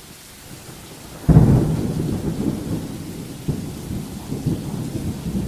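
Rain hissing, then about a second in a sudden loud thunderclap that rolls on as a low rumble, swelling and fading.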